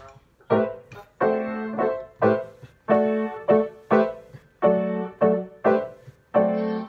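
Grand piano played in rhythmic block chords, struck about twice a second, some held longer, starting about half a second in.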